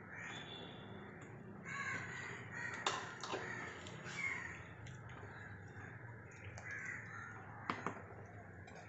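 A wooden spoon stirring simmering curry in a pot, with a few sharp knocks against the pot, and a few faint bird calls in between.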